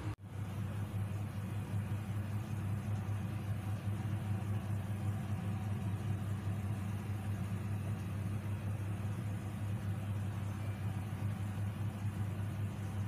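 Steady low mechanical hum of a running motor, unchanging throughout, with a momentary dropout right at the start.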